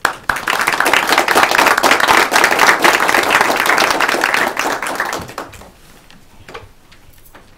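Audience applauding. The clapping starts suddenly and fades out after about five seconds.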